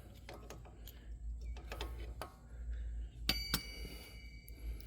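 Light clicks and knocks of metal brake parts and a hand tool being handled, then a sharp metal clink about three seconds in that rings on for a second or so.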